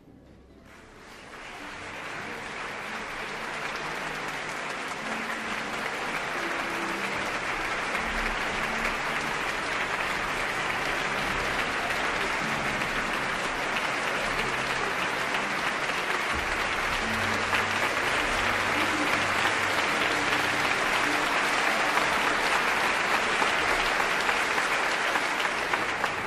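Concert audience applauding. The applause swells in over the first two seconds, holds steady, and stops right at the end.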